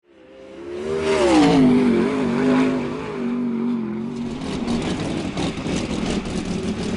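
Sprint car's small-block V8 engine: its pitch falls about a second in, runs fairly steady for a few seconds, then turns to a rough, uneven idle with crackles.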